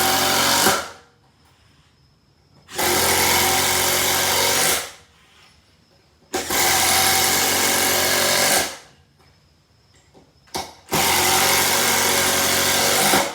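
12-volt cordless impact drivers driving 3-inch screws: four runs of about two seconds each, the steady hammering rattle starting and stopping sharply each time, with a short click shortly before the last run.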